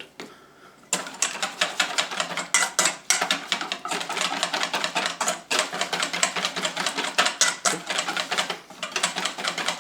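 Whisk beating a flour batter in a bowl: a fast run of clicking strokes against the bowl, starting about a second in and pausing briefly a few times.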